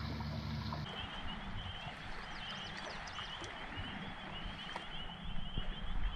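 A low steady hum cuts off under a second in, giving way to frogs calling in a steady high trilling chorus over a low rumbling outdoor noise, with a few short higher chirps.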